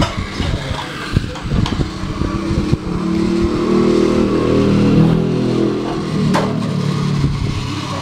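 Battery-powered toy Thomas engine running along plastic track, its small motor and gears giving a steady hum that grows louder about three seconds in and fades near the end. Before it, a few clicks and knocks of plastic toys being handled.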